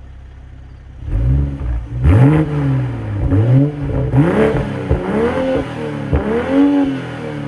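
BMW M240i's B58 turbocharged 3.0-litre inline-six, exhaust note, idling for about a second and then revved in a series of quick blips, each rising in pitch and falling back to idle. The car is on its stock exhaust.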